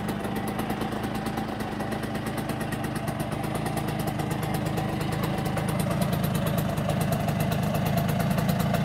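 Kreidler K54 moped's 50 cc single-cylinder two-stroke engine idling steadily.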